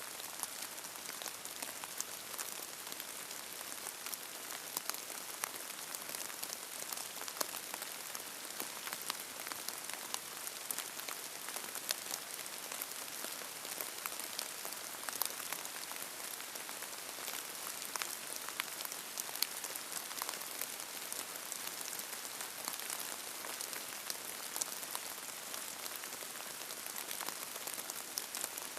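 Steady rain, an even hiss dotted with many sharp individual drop ticks, with no thunder.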